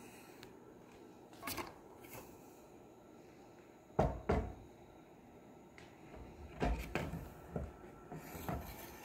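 Irregular knocks and clunks of a telescoping metal pole being handled in a bar stool's seat, the loudest a pair about four seconds in and a cluster near the end.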